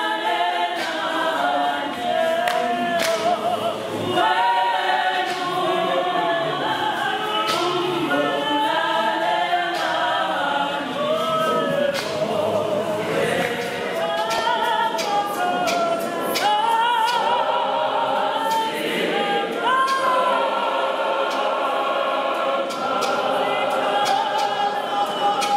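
A large mixed choir of men and women singing a cappella in full voice, with scattered sharp knocks through the singing.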